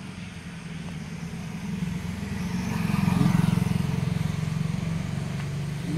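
A motor vehicle's engine running as it goes by: a low hum that swells to its loudest about three seconds in, then eases off.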